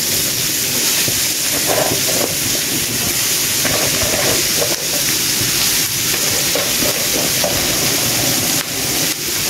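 Hot oil with onion, garlic and curry sizzling steadily in a frying pan as shredded cabbage is tipped in on top.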